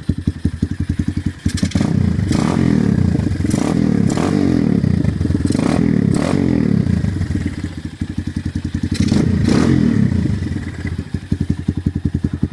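Honda XR200's single-cylinder four-stroke engine running through an aftermarket T4 race pipe. It idles with a quick, even beat, is revved for several seconds, eases back, is revved again about nine seconds in, and then settles back to idle.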